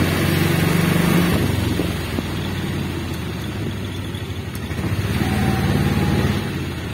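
Engine of a small vehicle heard from on board while driving along a road, with road noise. It runs louder for about the first second, eases off in the middle, then picks up again about five seconds in.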